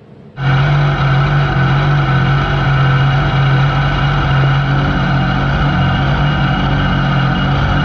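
Loud, steady running of an RSK kartcross's Yamaha MT-09 inline-three motorcycle engine, heard from inside the cockpit and held at an even pitch. It cuts in suddenly about half a second in.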